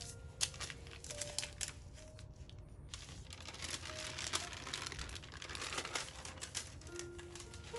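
A sheet of baking paper crinkling as it is handled over rolled-out tart dough and then peeled back off it. The crackle is densest and loudest in the second half, as the sheet comes away.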